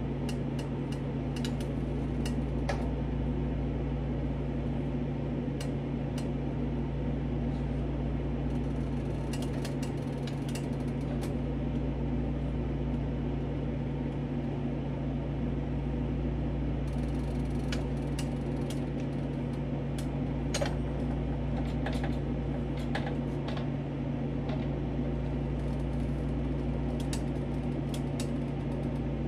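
A kitchen appliance motor hums steadily and low throughout. Over it come scattered soft clicks and rustles as raw bacon strips are peeled apart and laid down on a tray.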